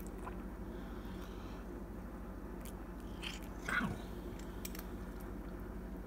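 A cat chewing a crunchy treat, with a few faint crunches around the middle, over a steady low hum.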